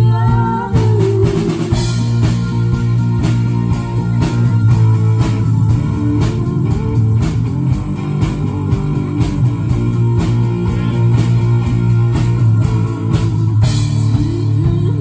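Live rock band playing an instrumental passage: electric guitar over a steady bass line and a drum kit keeping an even beat, with no singing until just after it ends.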